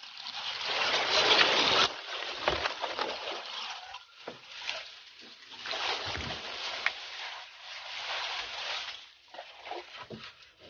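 Splashing steps wading through shallow swamp water, with tall grass swishing against the body and the camera. Loudest in the first two seconds, stopping suddenly, then coming in uneven surges.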